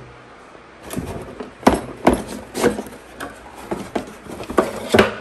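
Cardboard box being opened and its contents handled. From about a second in come an irregular run of sharp knocks, scrapes and rustles of cardboard flaps and plastic-wrapped parts.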